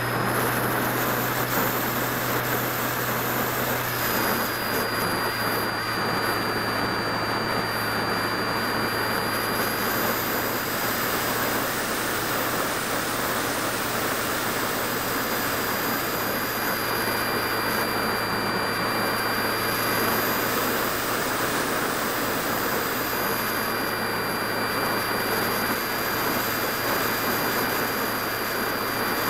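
Electric motor and propeller of a Phoenix 1600 RC glider running steadily under climb power: a thin high whine over heavy wind rush, heard from a camera mounted on the wing.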